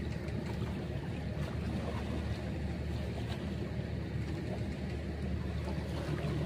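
Steady low rumble of seashore ambience, even throughout with no distinct events.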